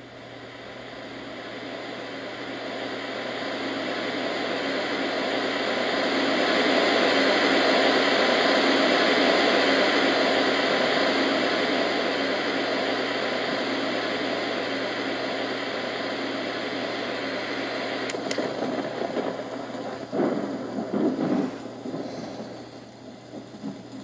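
HoMedics SoundSpa sound machine playing a steady rushing noise through its small speaker. It grows louder over the first several seconds as its volume knob is turned up, then eases back down, with a few brief irregular louder crackles near the end.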